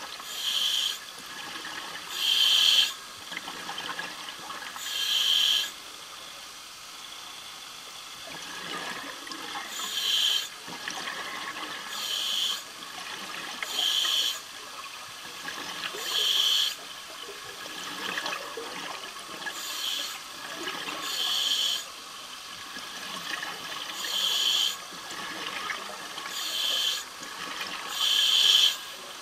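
A diver breathing underwater: exhaled air bursting out of the breathing gear as hissing, bubbling gushes about every two seconds, at an uneven pace, over a steady fainter hiss.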